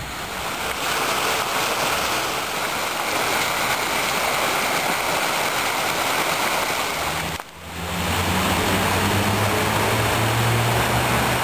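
Park fountains splashing: a steady rush of falling water. About seven and a half seconds in the sound cuts to a similar rushing noise with a low steady hum beneath it.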